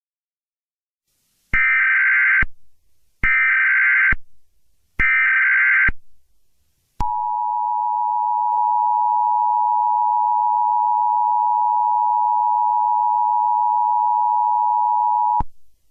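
Emergency Alert System signal: three short bursts of SAME header data tones, then the steady two-tone EAS attention signal for about eight seconds, which cuts off suddenly.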